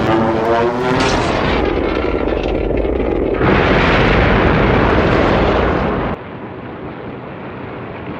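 The end of a Godzilla roar, the Godzilla 2014 (Legendary) roar effect, rising in pitch and fading about a second in. It is followed by a loud rushing, rumbling noise that swells a few seconds in and drops to a quieter low rumble about six seconds in.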